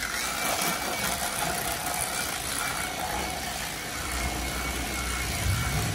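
Electric fillet knife running with a steady motor buzz as its reciprocating blade saws a fillet off a redfish (red drum).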